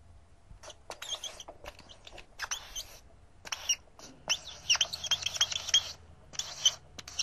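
A felt-tip marker squeaking in short strokes, the sound of handwriting. There are irregular bursts of scratchy hiss with little rising and falling squeaks, thickest in the middle of the stretch.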